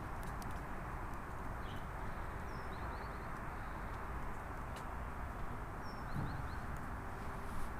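Outdoor ambience: a steady low rush with small birds chirping briefly a few times, a short falling note followed by a quick run of about four notes, repeated every few seconds.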